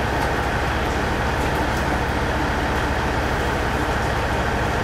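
JR KiHa 110-series diesel railcar pulling into the station past the platform: a steady, unbroken drone of its engine and wheels on the snow-covered track.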